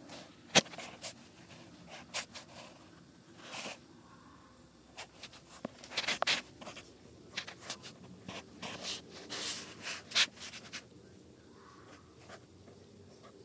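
Irregular harsh, hissing screeches from an unidentified animal in the dark, each under a second long, bunched toward the middle, with sharp clicks in between; the loudest click comes about half a second in.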